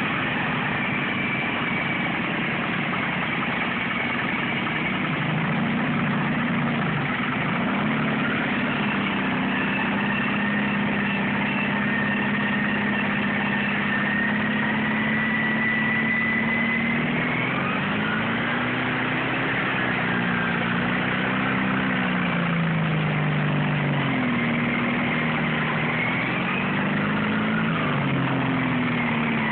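Small lawn tractor engines running hard, the nearer engine's pitch rising and falling again and again as the throttle and load change.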